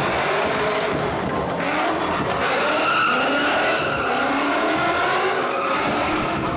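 A car drifting: its engine is held at high revs, the pitch rising and falling, over a continuous screech of spinning tyres.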